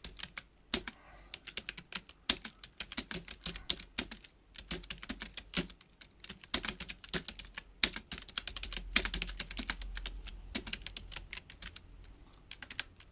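Typing on a computer keyboard during a typing speed test: keys clicking in quick runs broken by short pauses, at about 42 words a minute.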